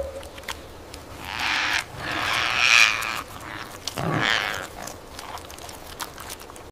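A group of feeding parrots giving three rough, scratchy squawks, each about a second long, with small clicks and pecking noises between them.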